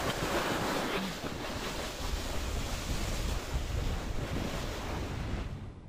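Wind buffeting an action camera's microphone, with the rushing hiss of a snowboard sliding over snow as the rider carves down the slope. The sound fades out near the end.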